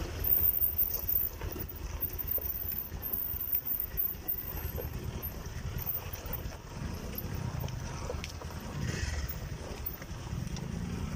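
Motorcycle engines running at low revs, a low uneven rumble, as the bikes crawl over a rocky trail, with scattered small knocks and rattles.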